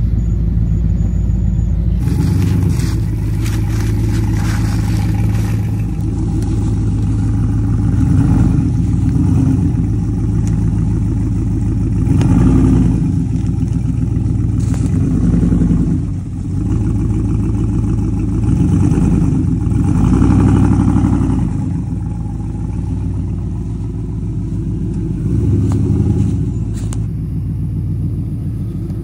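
Lifted Chevy Silverado Z71 pickup's engine running at low speed, the revs rising and falling in several surges as it crawls along a dirt trail. The sound changes abruptly a few times.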